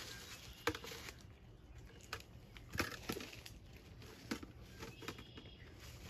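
A handful of faint, sharp clicks and taps scattered through, over a low steady background.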